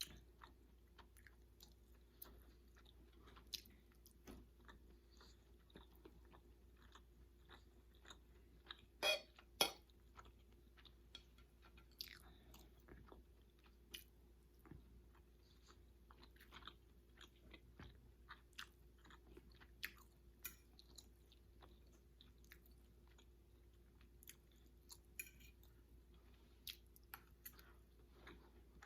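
Faint chewing and mouth sounds of a person eating salmon and rice, a scatter of soft clicks and smacks, with two louder smacks about nine seconds in.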